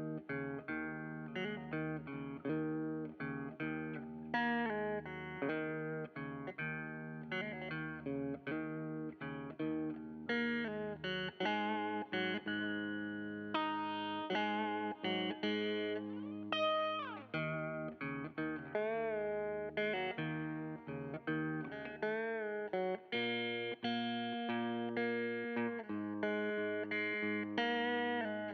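Background music: a plucked guitar playing a string of picked notes, with a pitch bend about two-thirds of the way through.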